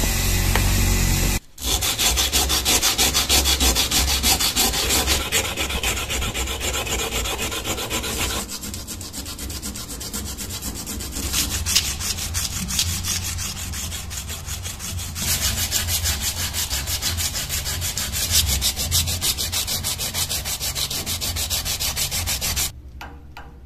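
A spinning abrasive wheel grinding against a steel knife blade for about a second and a half. Then a strip of abrasive is pulled rapidly back and forth across the blade, with fast, even rubbing strokes that go on to near the end.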